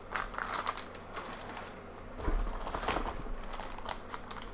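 Plastic packaging crinkling and rustling in irregular bursts as a Heroclix booster pack and the clear bag holding a figure are handled in the hands.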